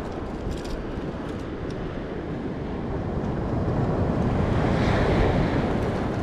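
Surf on a sandy beach, a wave swelling and washing in about four to five seconds in, with wind rumbling on the microphone.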